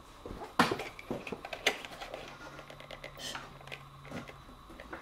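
A few sharp clicks and knocks of hands handling a motorcycle's bodywork and parts, the loudest about half a second in, with a faint low hum for about two seconds in the middle.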